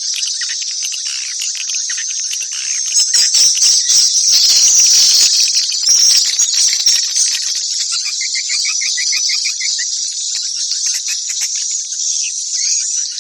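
Swiftlet lure call: a dense, high-pitched twittering of swiftlet chirps, loudest a few seconds in. A quick run of evenly repeated lower chirps comes about two-thirds of the way through.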